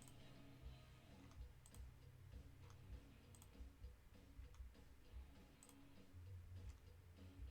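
Faint computer mouse clicks, several of them spaced a second or two apart, over a low room hum.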